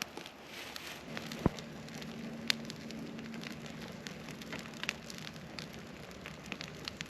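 Wood campfire crackling, with scattered sharp pops, the loudest about a second and a half and two and a half seconds in. A faint low steady hum runs through the middle.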